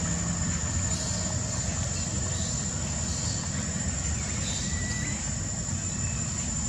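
Steady outdoor background noise: a low rumble under a continuous high-pitched whine, with a few faint brief chirps.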